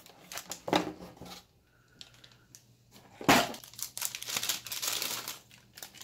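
Packaging being handled as a hard drive is taken from its cardboard box: a few soft rustles, a sharp knock about three seconds in, then a couple of seconds of crinkling and rustling.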